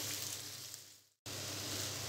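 Chopped teasel gourd pieces sizzling in hot oil in a frying pan as they are stirred with a spoon. The sizzle fades and cuts out completely about a second in, then comes back at once at the same level.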